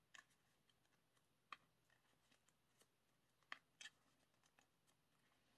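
Near silence, with a few faint clicks of plastic photocard sleeves in a binder being handled.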